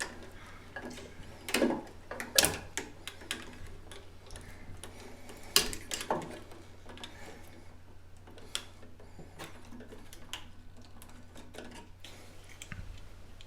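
Irregular clicks and taps of a screwdriver and pliers on an old light switch's screw terminals as its wires are loosened and pulled off, over a steady low hum.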